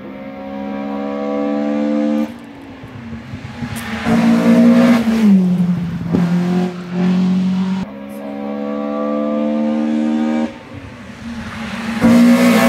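Hill-climb race car engines running at high revs as cars pass on the course, loudest twice as a car goes by. Each time the engine note steps down in pitch at a gear change.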